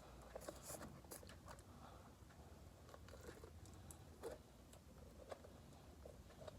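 Near silence, with faint scattered sticky clicks and squelches as a sticky slime is pulled out of a jar and handled.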